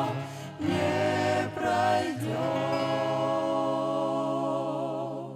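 Mixed vocal ensemble of women's and men's voices singing a gospel song in harmony with accompaniment. From about two seconds in they hold the song's final chord with vibrato, and it fades out near the end.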